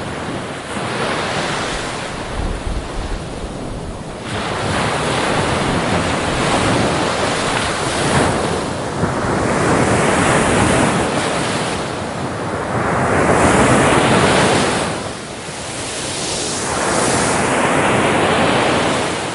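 Waves washing in, a steady rushing hiss that swells and falls back in surges every few seconds, with wind buffeting the microphone.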